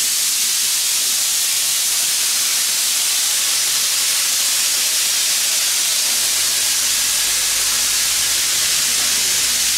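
A steam locomotive letting off steam below: a loud, steady hiss.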